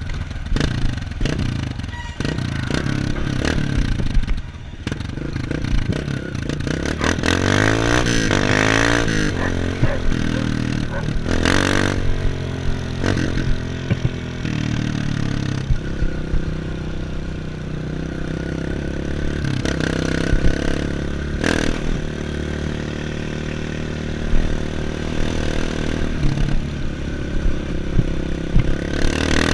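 Dirt bike engine running, its pitch rising and falling with the throttle, with a few sharp knocks.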